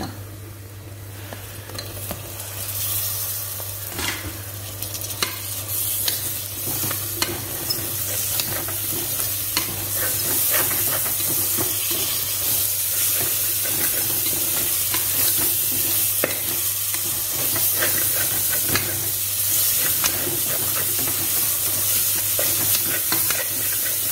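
Sliced tomatoes sizzling as they are stirred into frying onion, ginger-garlic and green chilli masala in a pressure cooker pot, the ladle scraping and clicking against the pot. The sizzle grows louder over the first several seconds.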